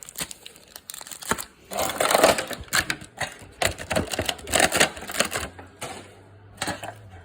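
Irregular crinkling and clattering as Pokémon card packaging, foil booster packs and a metal tin, is handled.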